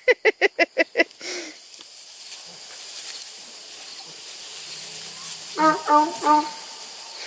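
A quick run of laughter, about eight short pulses in the first second, over a steady high hiss of crickets and insects, with three short voiced sounds near the end.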